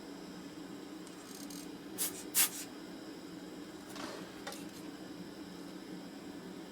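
Desoldering iron sucking solder out of a circuit-board hole in short hissing puffs of air, two close together about two seconds in and two fainter ones near the middle, over a steady low hum.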